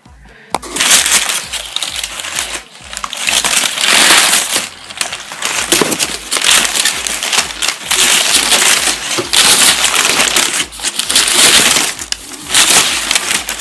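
Packing paper rustling and crumpling as a long sheet is pulled out of a shipping box, in loud continuous crinkling that starts about half a second in.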